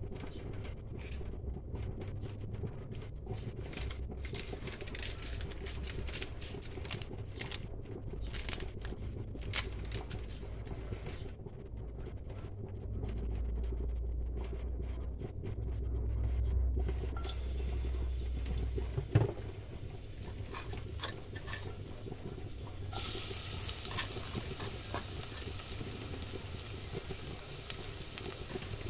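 Cooking oil heating in a small nonstick saucepan, with scattered crackles over a low rumble; a sharp knock a little past the middle, then a steady sizzle once minced garlic is in the hot oil.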